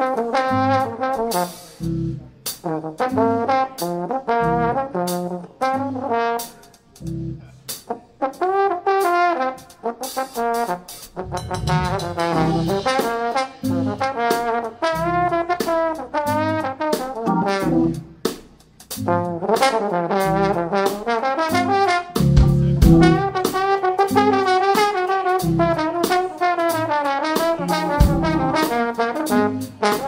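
Trombone playing fast phrases in a live jazz band, backed by drums and bass.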